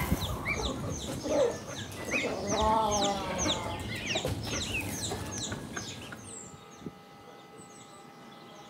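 Chickens clucking, with many short high chirps over the first six seconds and one longer call about three seconds in, then fading.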